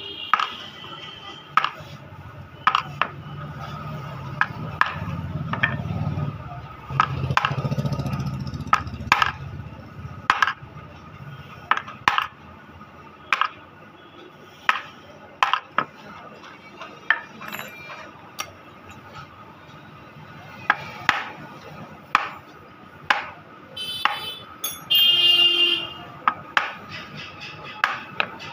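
Wood-carving chisel struck with a mallet, cutting grooves into a wooden panel: sharp knocks at uneven spacing, roughly one a second.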